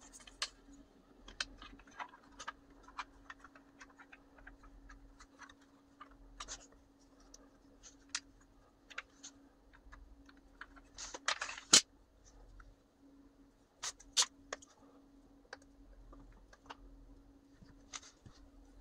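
3D-printed plastic parts clicking and tapping as they are handled and fitted together, with a louder clatter about eleven seconds in. A faint steady hum runs underneath.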